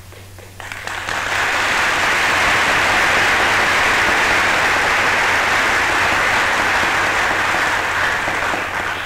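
Applause from a large crowd of members of Congress filling the chamber, swelling about a second in, holding steady and dying away near the end. The old newsreel recording carries a steady low hum beneath it.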